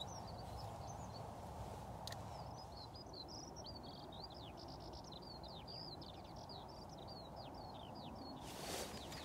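A small songbird singing a long, fast, varied song of short high chirps, sweeps and trills, over a steady low rushing background. A brief rustle comes near the end.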